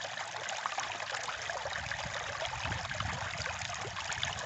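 Shallow stream running over rocks: a steady rush of water with constant small splashes and gurgles.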